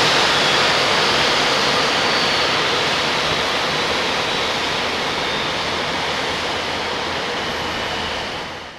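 Boeing 787 turbofan engine spooling down after shutdown: a steady rushing of air with a faint high whine slowly dropping in pitch, gradually getting quieter, then fading out near the end.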